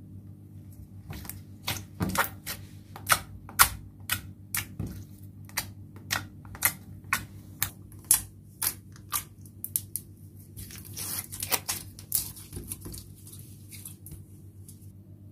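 Clear glittery slime being poked and pressed with fingers, making crisp clicking pops about two a second, then a quicker flurry of crackles near the end.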